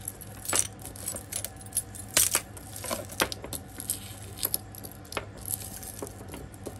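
Pieces of costume jewelry being handled and sorted: chains, beads and metal bits jangling and clinking against each other in irregular clicks, the loudest clatter about two seconds in.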